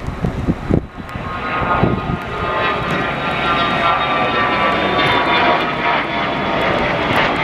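Twin turbofan engines of a business jet climbing out after takeoff: a loud jet roar with a high whine that builds over the first couple of seconds and then holds. Wind buffets the microphone at the start.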